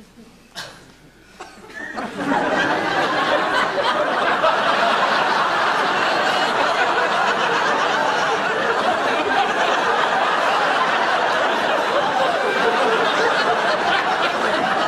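Audience laughing, breaking in suddenly about two seconds in after a quiet moment with a couple of faint clicks, then going on loud and steady.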